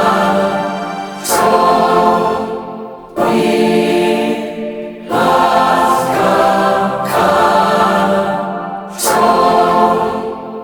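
Music: wordless, choir-like sustained chords, a new chord swelling in about every two seconds and fading before the next.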